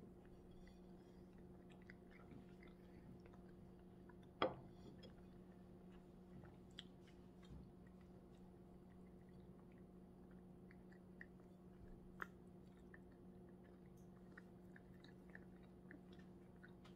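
Quiet chewing and small mouth sounds of a person eating a slice of pizza, over a faint steady hum. A single sharp click about four and a half seconds in is the loudest sound.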